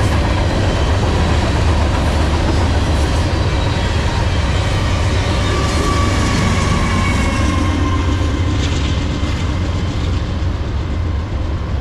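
Tail end of a Norfolk Southern freight train passing: gondola car wheels clattering over the rails over a steady heavy low rumble. About six seconds in the rear diesel locomotive goes by, with a tone that drops in pitch as it passes, and the train's sound then moves away.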